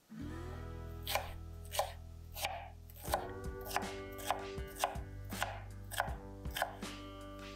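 Knife chopping vegetables on a cutting board, in evenly spaced strokes about one and a half a second, starting about a second in.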